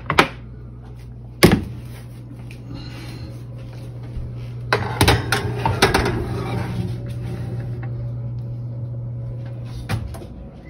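A casserole dish being put into a wall oven: sharp knocks early on, a run of clattering and scraping about five seconds in as the dish slides onto the metal oven rack, and a thump near the end as the oven door shuts. A steady low hum runs underneath and fades out near the end.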